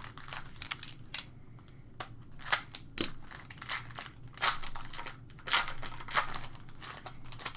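Trading-card pack wrapper being torn open and crinkled, with cards handled, as a series of irregular short rustles.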